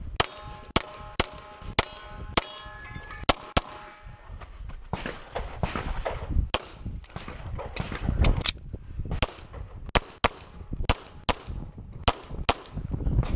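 Pistol shots fired in quick strings, some in fast pairs, with a lull of about two seconds in the middle. Struck steel targets ring after the first few shots.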